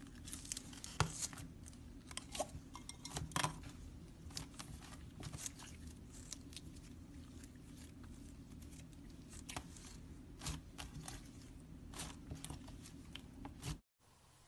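Slime being handled, giving irregular small clicks and crackling pops over a steady low hum; it stops abruptly near the end.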